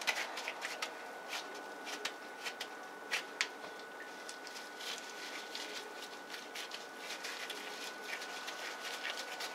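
Gloved hands pressing and patting a ball of raw ground beef: scattered soft irregular pats, squishes and small clicks.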